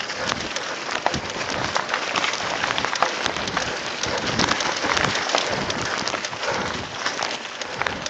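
Mountain bike rolling fast downhill over a dirt trail covered in dry leaves: a steady hiss and crackle of tyres on leaves and twigs, peppered with rattles and knocks from the bike over bumps.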